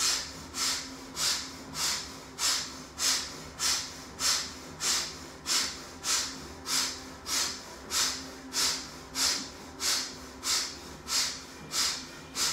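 Kapalabhati pranayama breathing: short, forceful exhalations pushed out through the nose, each a sharp hissing puff, evenly spaced at about three every two seconds, with quiet passive inhalations between.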